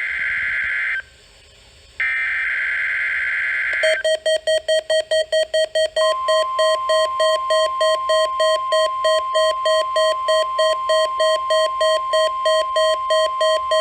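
NOAA weather radio receiver sounding the weekly test alert through its speaker. The first two sounds are harsh two-tone SAME digital header bursts: one ends about a second in, and after a short gap a second runs for nearly two seconds. Then the receiver's alarm beeps rapidly, about four beeps a second, and a steady weather-alert tone joins it about six seconds in.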